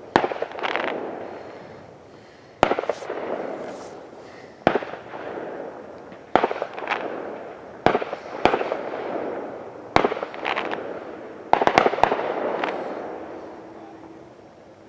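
Fireworks going off: about eight sharp bangs at irregular intervals of one to two seconds, a few in quick pairs or clusters, each followed by a long rolling echo that fades away.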